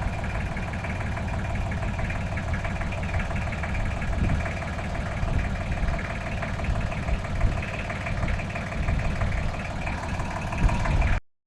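An engine running steadily at idle, a constant low rumble with a steady whine above it, which cuts off abruptly near the end.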